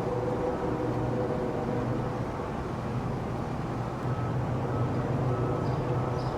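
Train rolling past: a steady rumble of wheels on rails with a low drone, and faint thin tones coming and going.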